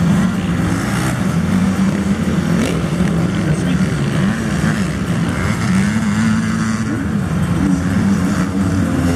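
Motocross motorcycle engines revving as the bikes ride the dirt track, rising and falling in pitch with each throttle and gear change.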